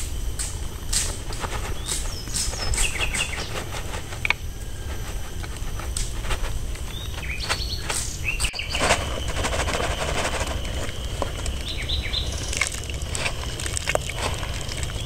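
Outdoor ambience of birds chirping over a steady low rumble. Scattered clicks and a rustling patch about nine seconds in come as chopped palm sugar slides off a woven bamboo tray into a pot of porridge. A thin steady high tone starts about the same time.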